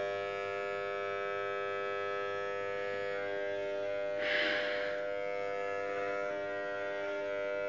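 Electric hair clippers running with a steady buzz during a head shave. A brief rustling noise about four seconds in.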